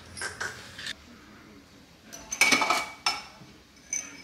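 Dishes and glassware clinking and clattering on a kitchen counter in short bursts. The loudest comes a little after two seconds in and holds a ringing clink.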